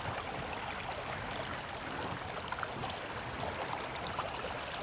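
Creek water flowing steadily, an even rush with no breaks.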